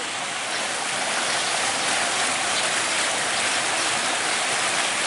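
Steady rush of flowing river water, foam streaking its surface.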